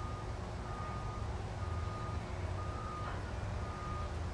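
Vehicle reversing alarm beeping, a single high tone about once a second, each beep about half a second long, over a steady low rumble.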